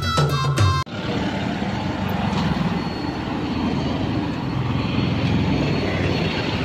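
Background music cuts off abruptly about a second in and gives way to steady street noise of a busy road, with motorbikes and cars going by.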